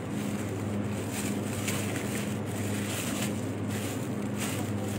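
Steady low hum of supermarket refrigerated produce cases, with a faint regular pulsing in it, broken by several brief rustles.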